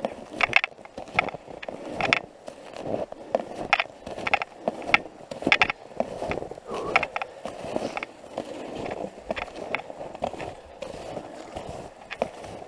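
Snowshoe footsteps crunching through snow at a steady walking pace, each step a short crisp crunch.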